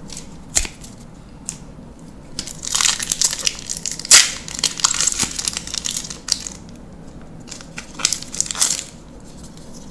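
Foil Magic: The Gathering booster pack wrapper being crinkled and torn open by hand, in crackling bursts, the loudest about four seconds in and another spell near the end. A single sharp tap just after the start.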